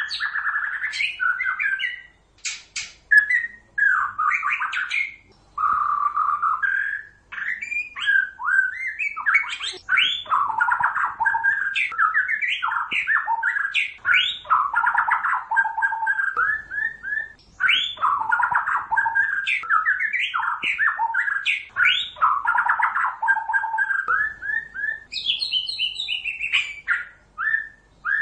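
White-rumped shama singing: a continuous string of rapid, varied whistled phrases with short pauses between them, and a few sharp clicking notes about two to three seconds in.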